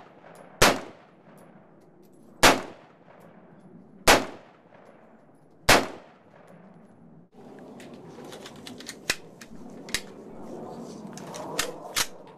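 Four single shots from an LWRC M6A2 AR-15-type rifle in .223/5.56, fired semi-automatically about one and a half to two seconds apart, each with a short echoing tail. In the last few seconds come several fainter sharp clicks and clacks, the rifle being handled.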